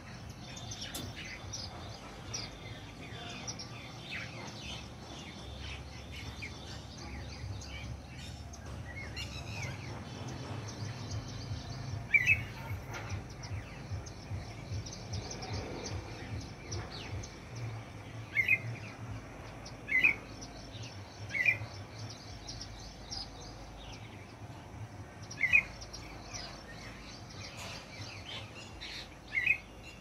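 Songbirds, red-whiskered bulbul among them, chirping and calling: many light chirps, then about six louder short calls spaced a few seconds apart in the second half.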